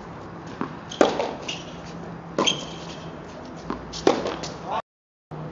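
Tennis rally on a hard court: racket strings striking the ball about every one and a half seconds, with a short high squeak in the middle. The sound cuts out for a moment near the end.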